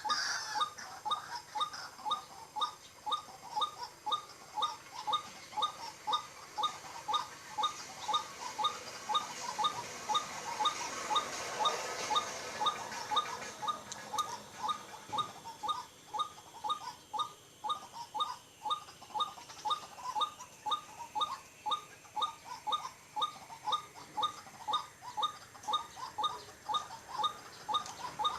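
White-breasted waterhen's 'ruak-ruak' call, repeated in an even, unbroken series of about one and a half calls a second.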